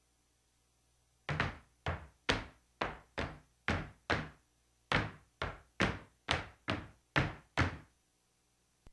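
Folk-dance zapateado: shoes and boots stamping on a wooden floor, about fourteen sharp stamps at roughly two a second, with no music.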